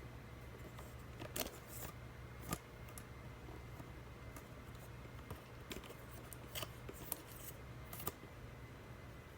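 Scattered sharp clicks and light scrapes of screws being worked out of a plastic TV back cover, about half a dozen in all, over a steady low hum.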